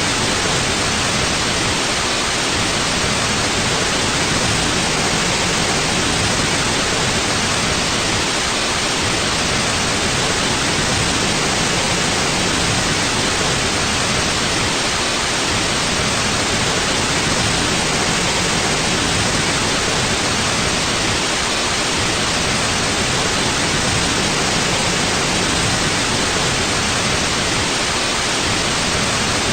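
Steady white noise: an even, unbroken hiss that does not change.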